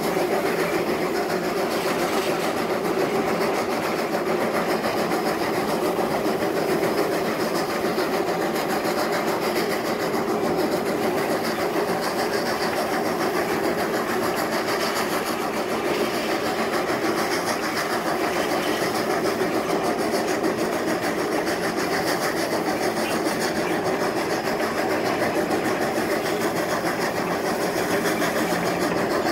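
Polson Logging Co. No. 70, a 2-8-2 steam locomotive, working steadily under way: rapid, even exhaust chuffing from the stack, the locomotive's "stack talk".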